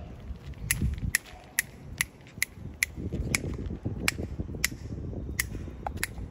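A cat crunching dry kibble: a run of sharp crunches, about two a second, with a low rustle in the middle.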